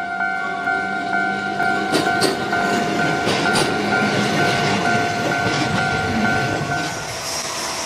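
A Kotoden Shido Line electric train running past, its wheels clattering over rail joints from about two seconds in. Under it is a steady ringing tone that stops near the end.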